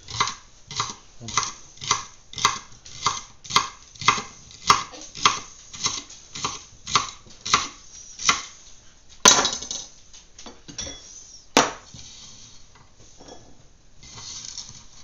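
Kitchen knife chopping celery stalks on a cutting board: a steady rhythm of knife strikes, a little under two a second, for about eight seconds. Then two louder single knocks a couple of seconds apart, and quieter handling sounds after that.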